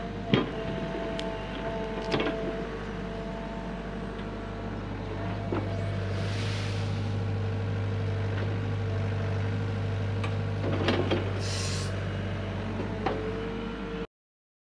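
Hyundai HX85A excavator running, a steady engine drone with a steady higher tone, a few scattered clunks and two short hisses. The sound cuts off abruptly near the end.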